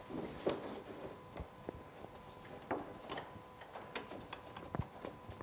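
A few light clicks and knocks with faint rubbing as a rubber vent hose is drawn by a wire through a tight chase under a UTV's skid plate.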